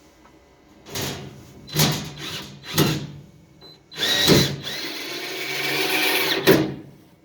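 Power drill running in three short bursts about a second apart, then in one longer run of about two and a half seconds.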